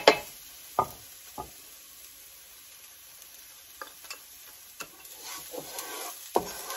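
Chopped shallot, celery and garlic sizzling in olive oil in a skillet. A wooden spoon knocks sharply three times in the first second and a half, the first knock the loudest, then from about five seconds in scrapes and stirs the pan.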